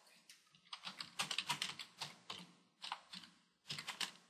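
Computer keyboard being typed on: runs of quick keystrokes with short pauses between words.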